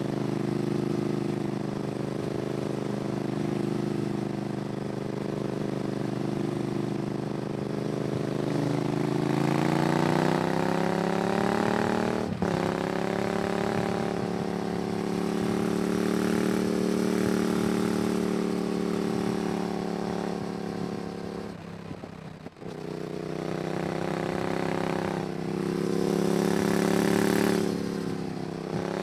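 Yamaha MT-07's parallel-twin engine running through an IXIL aftermarket exhaust. It holds a steady note, then the revs climb smoothly about ten seconds in. There are brief sharp breaks in the note near twelve seconds and again about twenty-two seconds in, and the revs rise once more near the end.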